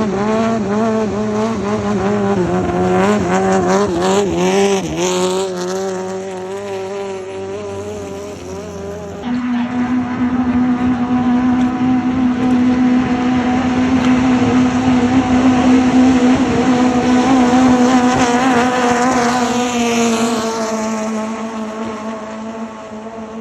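Ee-pae hot-rod boat's Toyota 5K four-cylinder engine running hard: the revs waver for the first several seconds, then about nine seconds in jump to a higher, steady pitch held for about ten seconds before easing down near the end.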